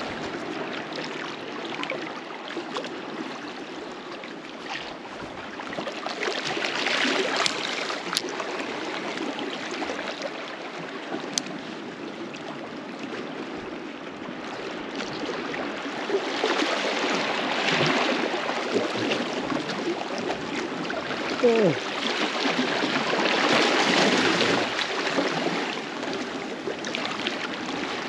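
Small sea waves lapping and washing against shoreline rocks, a steady wash that swells up three times. About three-quarters of the way through, a short squeak glides quickly downward.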